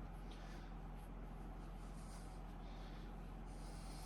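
Faint, soft rustling swishes of polyester fiberfill stuffing being pushed by hand into a plush toy, a few separate strokes, over a steady low hum.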